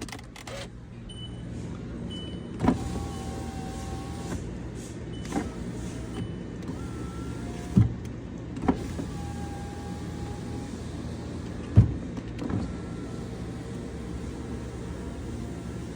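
Volkswagen Passat power window motors running as the windows are tested with a newly fitted master window switch, with a steady hum broken by about five sharp clicks.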